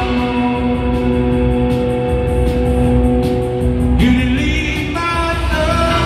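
A live rock band playing in an arena, with guitars and singing. A long note is held, then the music changes about four seconds in.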